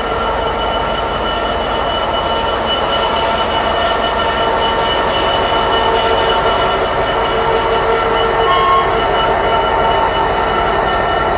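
A train passing close by: continuous running noise with several steady tones held throughout, a little louder toward the middle.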